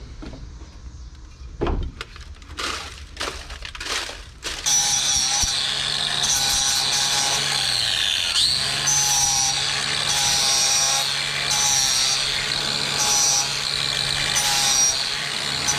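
A handheld angle grinder starts about five seconds in and runs steadily, grinding the edge of an aluminium sheet-metal box. Its grinding pitch swells and eases with each pass. Before it starts there are a few knocks from the box being handled.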